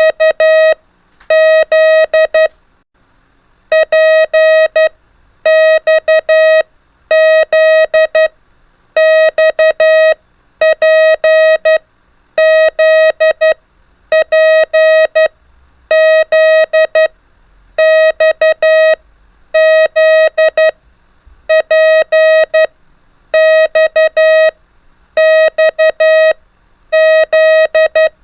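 Morse code (CW) practice tone: a single steady mid-pitched beep keyed into dots and dashes, sending the letters P, X and Z in short groups of about a second each, with brief pauses between groups.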